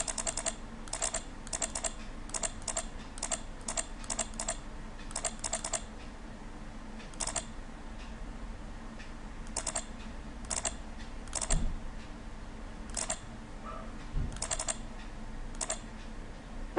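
Computer mouse clicking: single clicks and quick runs of two to four, with short pauses between. Twice a dull low knock is heard.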